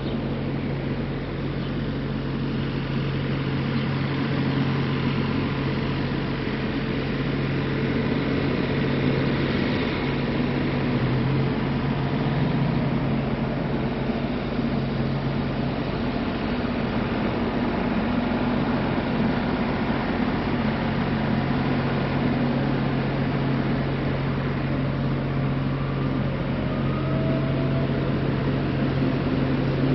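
Steady city street ambience: traffic along a busy avenue with a constant low mechanical hum, with no sudden events.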